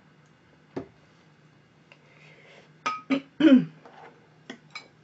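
Chopsticks clicking a few times against a glass dish during eating, with a short throaty vocal sound, falling in pitch, about three and a half seconds in as the loudest part.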